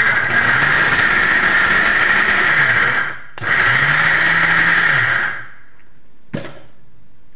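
Electric mixer grinder with a steel jar running, grinding a dry chana dal, peanut and coconut chutney. It runs for about three seconds, stops for a moment, runs about two seconds more and winds down; a short knock follows near the end.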